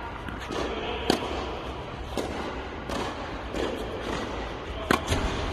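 Tennis ball struck by a racket: sharp hits, the loudest about a second in and near the end, with softer knocks of the ball between them.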